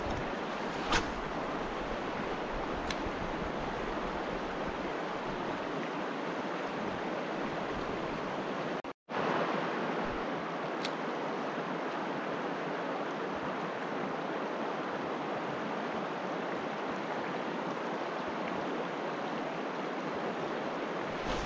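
Steady rush of a fast mountain river, an even wash of water noise, with a sharp click about a second in and fainter ones about three and eleven seconds in. The sound cuts out completely for a moment about nine seconds in.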